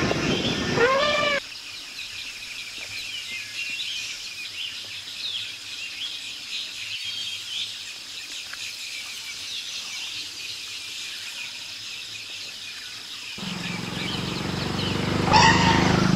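Forest birds chirping and calling over quiet background noise. A louder passage with one rising call cuts off suddenly about a second and a half in. About thirteen seconds in, a steady engine and road noise starts and grows louder.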